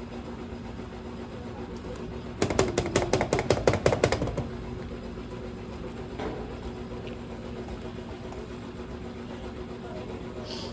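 Washing machine spinning, its motor giving a steady hum with a held tone. About two seconds in, a fast run of knocks, roughly seven a second, rattles for around two seconds and then stops.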